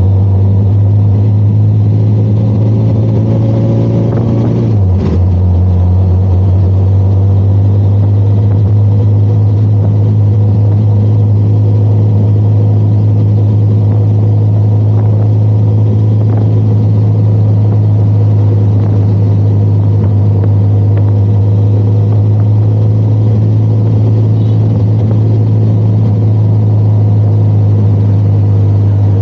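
Benelli TRK 502 X's parallel-twin engine running while riding: the revs climb for the first few seconds, a gear change about five seconds in drops them with a brief click, and then the engine runs steadily.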